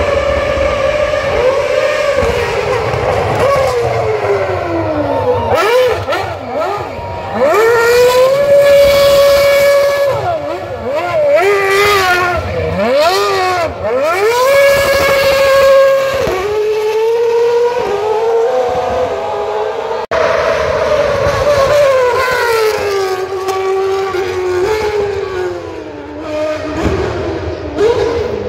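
Red Bull RB8 Formula 1 car's 2.4-litre V8 revving hard while it spins donuts. The revs swing up and down again and again, twice held high and steady for a couple of seconds in the middle, with the rear tyres spinning.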